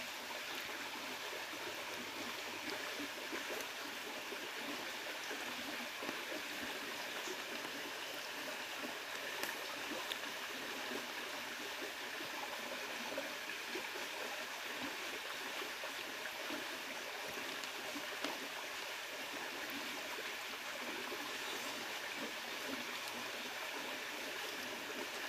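A river flowing steadily, an even rushing of water with a few faint clicks.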